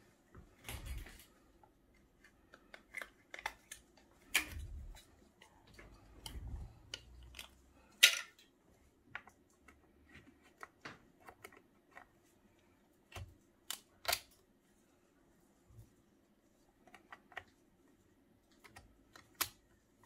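RAM modules being fitted into a 2012 Mac Mini's laptop-style memory slots by hand: scattered small clicks and taps of the sticks against the slot and its retaining clips, the sharpest about eight and fourteen seconds in, with some low handling rumble in the first seconds.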